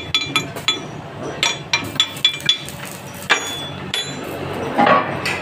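A metal rod tapping on the freshly welded joint of a steel truck axle: about a dozen sharp metallic taps, each ringing briefly, quick and irregular at first, then one more after a pause. A short louder scrape comes near the end.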